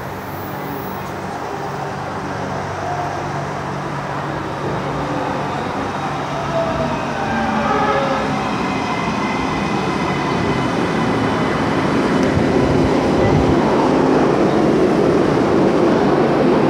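Atlanta MARTA subway train pulling into an underground station platform, getting steadily louder as it comes in, with a whine that rises in the middle of its approach.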